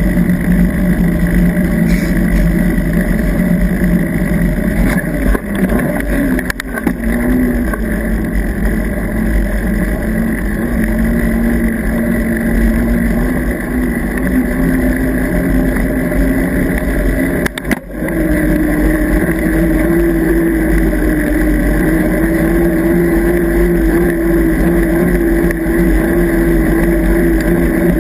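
Mountain bike tyres humming on asphalt under wind rush, a steady drone that climbs in pitch as speed builds and steps higher after a brief dip just past halfway.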